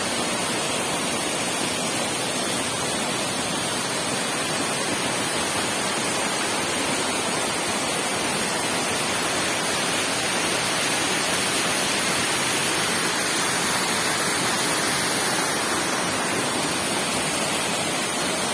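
Waterfall pouring over rock ledges into a pool: a loud, steady rush of falling water, swelling slightly midway.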